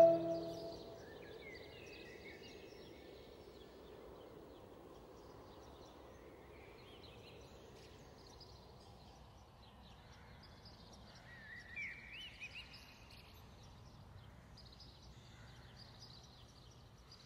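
The last notes of a Yamaha marimba ring out and die away within the first second. Then comes faint outdoor ambience with small birds chirping now and then, the loudest calls about twelve seconds in.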